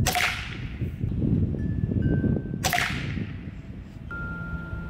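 Two shots from a .25 calibre Norica Omnia ZRS break-barrel gas-piston air rifle, about two and a half seconds apart. Each is a sharp crack with a short ringing tail.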